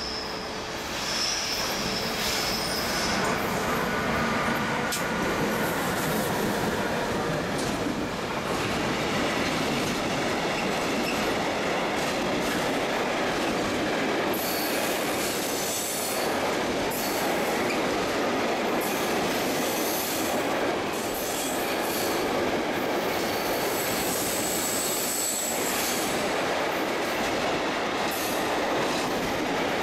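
Container freight wagons rolling past on a curve: a steady, loud rolling noise with high wheel squeals, one just after the start and another about two-thirds through, and scattered knocks as the wheels cross track joints and points.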